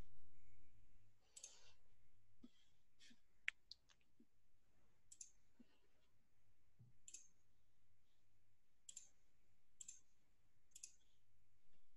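Faint computer mouse clicks, a dozen or so spread irregularly, picked up by a computer microphone during an online call.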